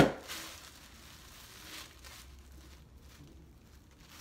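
A sharp knock right at the start, then faint rustling as a long body-wave human-hair wig is handled and turned over.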